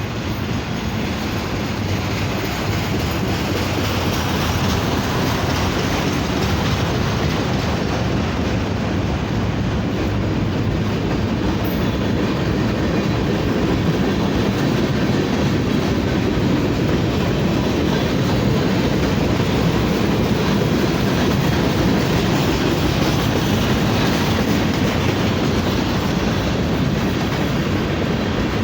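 BNSF manifest freight train rolling steadily past: a loud, continuous rumble and rattle of wheels on the rails.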